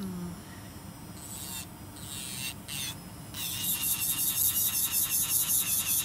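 Electric nail drill with a flat-top carbide bit filing an acrylic nail: a steady high motor whine with a rasp that comes and goes, settling about halfway in into quick strokes of about four a second.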